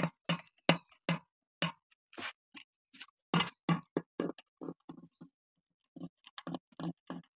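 Ratchet wrench clicking in short strokes, about three a second with a short pause near the end, as bolts are tightened into the jacking holes of an air compressor's bearing cover to push the cover off.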